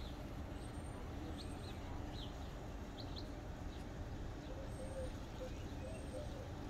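Outdoor ambience: a steady low background rumble with faint, scattered bird chirps, clustered in the first few seconds.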